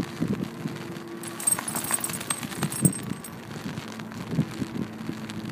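Close rustling and soft thumps of a dog's rain coat brushing the microphone, with metal collar tags jingling for about two seconds in the middle, over a steady low hum.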